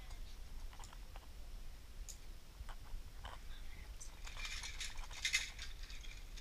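Metal zipline gear, such as carabiners and trolley pulleys, clinking and jangling as it is handled. There are scattered single clicks, then a burst of jingling about four seconds in, over a low steady rumble.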